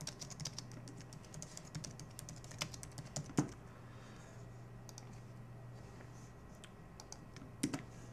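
Typing on a computer keyboard: a quick run of key clicks for the first three seconds or so, then scattered keystrokes, with two louder key strikes, one midway and one near the end.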